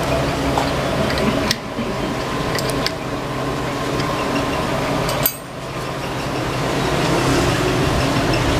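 Steady machine hum, like an engine or compressor running, with a few sharp clicks and knocks over it.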